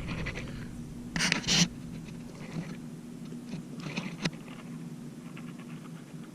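Two short scraping rustles a little over a second in and a sharp click about four seconds in, over a steady low hum: handling noise from someone working a phone.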